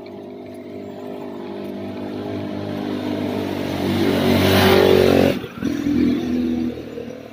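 A motorcycle engine passing close by. It grows steadily louder for about five seconds, drops out sharply for a moment about five and a half seconds in, comes back briefly, then fades away.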